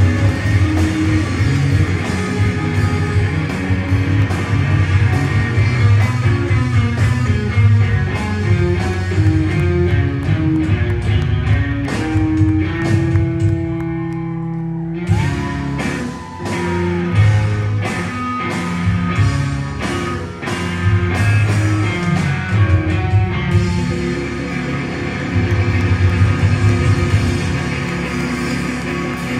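Live rock band playing loud: overdriven electric guitars over a drum kit. About thirteen seconds in the drums drop out for a couple of seconds under one held note, then the full band crashes back in.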